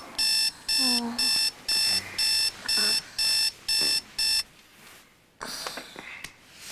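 Digital bedside alarm clock going off: short high electronic beeps, about two a second, until it stops about four seconds in.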